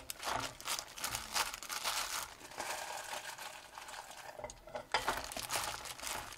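Shishito peppers dropped by the handful into a stainless steel pot of quail eggs and broth, with a disposable plastic glove crinkling: a string of irregular rustles and soft knocks.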